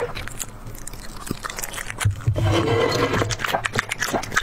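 Small dog chewing and smacking food with many quick wet clicks, and a louder low rumble for about a second and a half in the middle.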